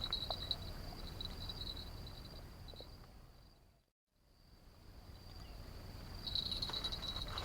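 Insects trilling at one high, steady pitch over faint outdoor background noise; the sound fades out to silence about four seconds in and fades back up.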